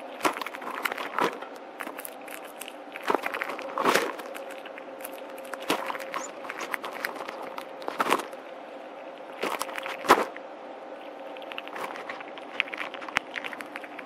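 Gray squirrel cracking and chewing seeds and shuffling through birdseed on a feeder tray: irregular sharp clicks and cracks, the loudest about four, eight and ten seconds in, over a faint steady hum.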